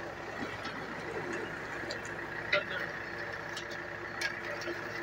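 A steady engine hum with faint tones, broken by a few short knocks about two and a half and four seconds in.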